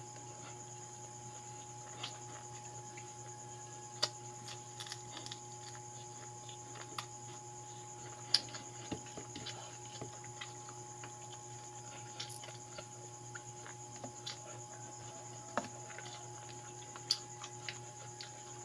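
Close mouth sounds of a person eating noodles and fried dried fish by hand: scattered small wet clicks and smacks of chewing, a few sharper ones, over a steady low hum.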